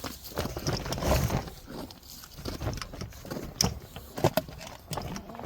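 Irregular knocks, clicks and rustles, with a low rumble underneath.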